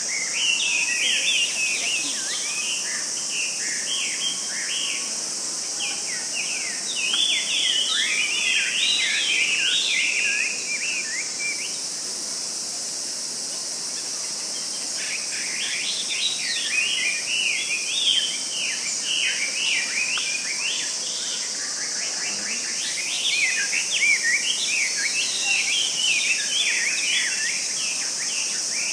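Forest ambience: a steady, high-pitched insect drone underneath bouts of rapid bird chirping. The chirping eases off for a few seconds about halfway through, then picks up again.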